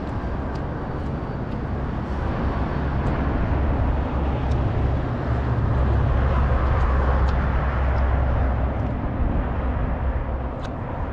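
Strong wind buffeting the microphone with a deep, steady rumble that swells for a few seconds in the middle and then eases.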